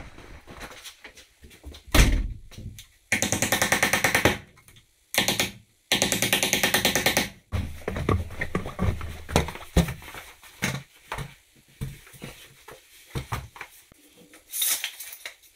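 Tiling work noise: a heavy thunk about two seconds in, then two runs of fast, even rattling clicks, each a little over a second long, followed by scattered light knocks and clatter.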